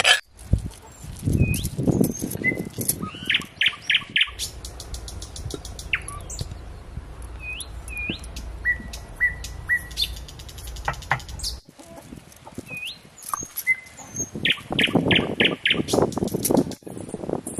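Small birds chirping again and again with short gliding chirps. Over them comes hand work at a stone grinder: scraping and rubbing, and two quick runs of about five clicks each, one early and one near the end.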